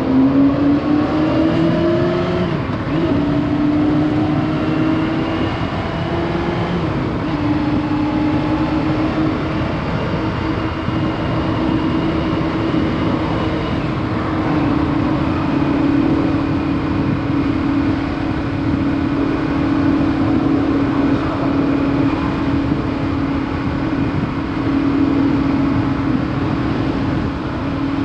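Honda CB400 Super Four's inline-four engine under way on the road: its note climbs a little and dips briefly about three seconds in, then holds a steady cruising pitch.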